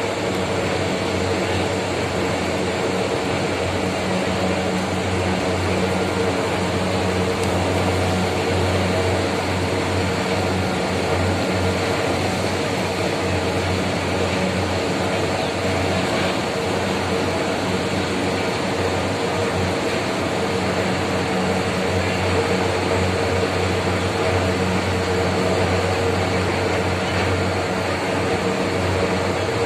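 Steady drone of running heavy machinery, a constant deep hum with a noisy wash over it that does not change.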